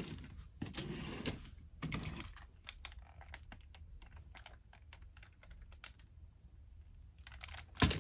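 Hard plastic parts of a DX Super Sentai combining robot toy clicking as they are handled and fitted together. Small sharp clicks come in a run, with two short scrapes in the first two seconds and a louder snap near the end.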